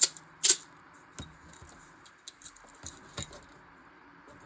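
Scattered light clicks and taps of a toothpick against a small acrylic paint jar as paint is scooped out. There are two sharp clicks within the first half second, then lighter ticks every half second or so.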